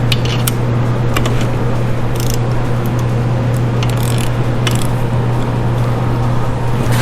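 Hand ratchet clicking in short irregular runs while bolts are worked out of an engine block, over a loud steady low hum.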